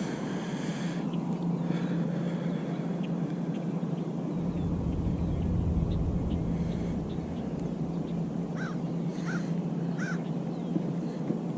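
Outdoor birdsong with small scattered chirps, then three short harsh bird calls in quick succession near the end, over a steady low hum and a brief low rumble in the middle.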